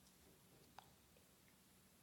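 Near silence: room tone with a faint low hum and one faint click a little under halfway through.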